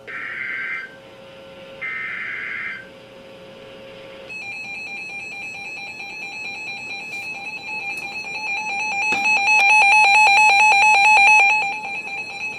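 Emergency Alert System SAME header data bursts: two bursts of warbling digital tones, each about a second long, in the first three seconds. About four seconds in, a steady high-pitched EAS attention tone begins. About nine seconds in it turns to a fast pulsing flutter and grows louder, then drops near the end.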